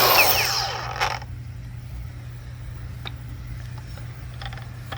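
Milwaukee M18 Fuel cordless angle grinder with Rapid Stop, already running, spinning down within about a second with a falling whine as its electronic brake stops the disc. A few light clicks of handling follow, over a steady low hum.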